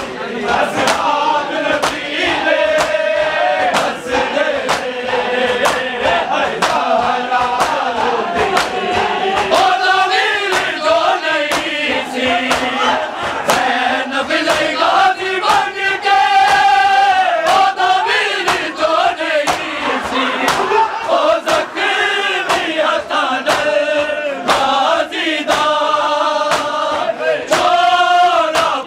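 Men of a matami group chanting a Punjabi noha, a mourning lament, together, with a steady beat of sharp slaps of matam (chest-beating) keeping time under the voices.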